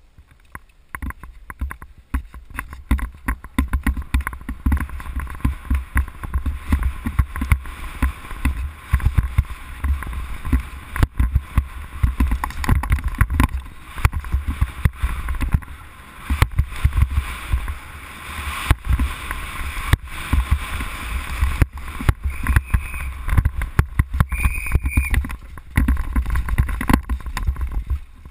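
Downhill mountain bike descending a dirt trail at speed, heard from a camera on the rider: constant irregular rattling and knocking of the bike over roots and rocks, tyres on dirt, and wind rumbling on the microphone. A few short high squeals come near the end.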